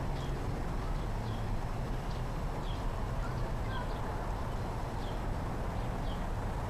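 A bird's short, high chirps repeated about once a second, over a steady low rumble.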